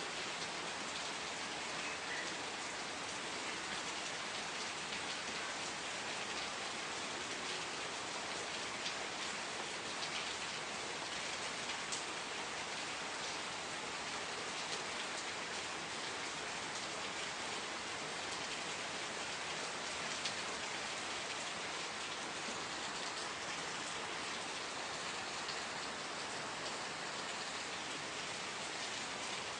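Steady rain falling, a dense even patter with scattered individual drops ticking.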